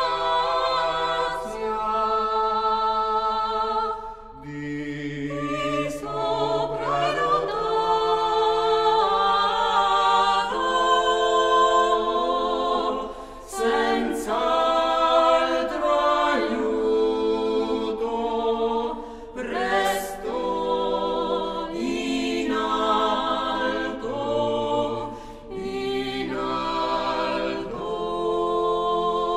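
Music: a choir singing slow, long-held chords, with short breaks between phrases.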